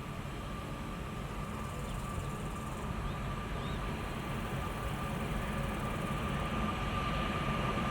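Train approaching: a steady low rumble growing gradually louder, with a faint steady high tone running through it.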